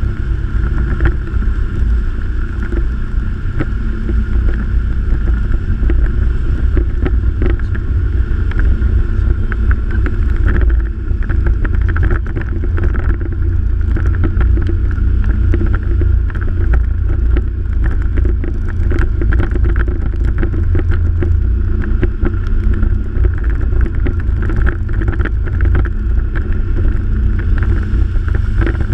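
A motor running steadily, with a heavy fluttering rumble of wind on the microphone.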